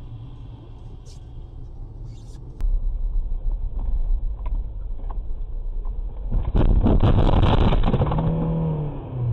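Car road noise and low rumble heard from inside the cabin, then from about two-thirds of the way in a loud rushing, scraping crash as the car leaves the road and ploughs into roadside bushes, ending in a short wavering tone.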